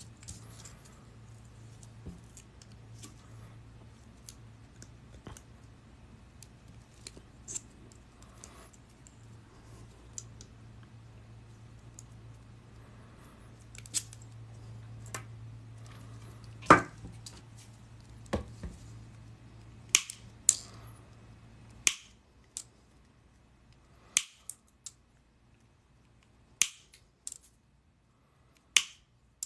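Hand cutters snipping steel paperclip wire into chainmail rings: sharp metal snaps, about ten spread over the second half, after light clicks of loose rings and clips being handled. A low steady hum cuts out about two-thirds of the way through.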